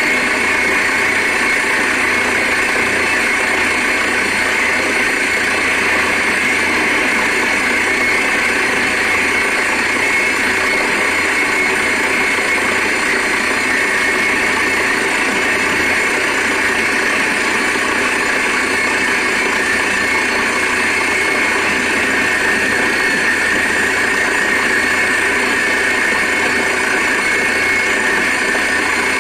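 Truck-mounted borewell drilling rig running steadily while it drills, with compressed air blasting rock dust up out of the bore. The noise is loud and unchanging throughout.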